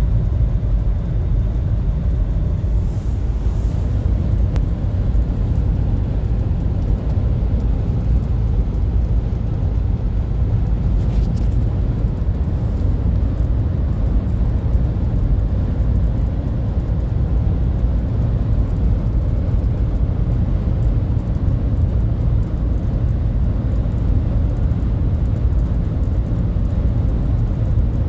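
Steady low road and drivetrain rumble inside the cabin of a 2023 Nissan Rogue SL while it is being driven.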